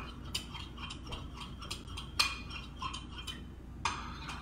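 A utensil clicking against a glass bowl while a wet mixture is stirred together: irregular light taps, a few a second, with a louder clink about two seconds in and another near the end.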